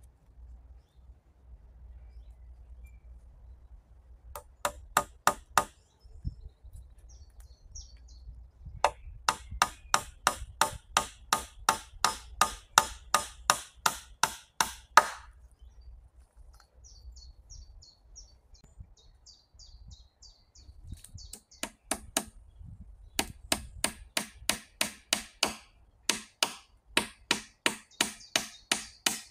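Rapid, evenly paced strikes of a tool on wood, about three a second, coming in several runs with short pauses between them.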